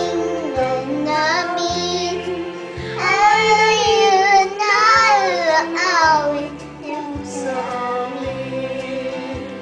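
A three-year-old girl singing into a handheld microphone over a backing track with a steady bass line. Her voice is strongest in the middle and grows weak about seven seconds in while the backing music plays on.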